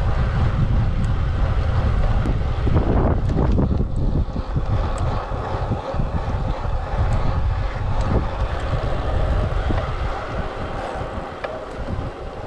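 Wind buffeting a GoPro Hero 8 Black's microphone as a road bike rolls along at speed: a steady low rumble that eases a little in the last few seconds.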